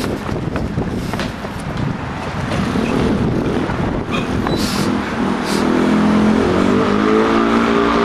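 A vehicle running: a noisy rumble, then from about halfway through a steady motor hum that rises slightly in pitch.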